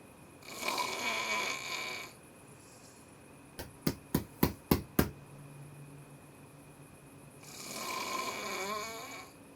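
A man snoring, two long snores several seconds apart, and between them a quick run of about six sharp knocks on a door.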